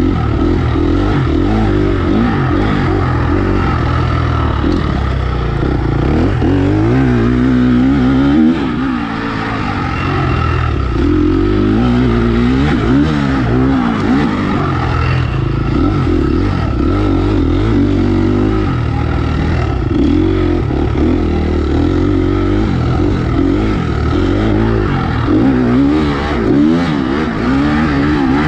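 Motocross bike engine heard from on the bike while riding, revving up and down continuously as the throttle is worked, its pitch rising and falling over and over. The level drops briefly about eight and a half seconds in as the throttle is shut.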